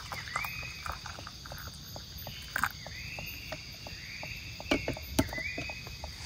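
Water pouring from a kettle into a metal camping mug, with a few sharp clicks. Behind it a forest animal repeats a call, a note that rises and then levels off, about once a second.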